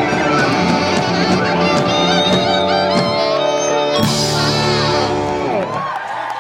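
A live rock band playing the closing bars of a song, with a final crash about four seconds in that rings out and dies away shortly after five seconds. Crowd yells start up as it fades.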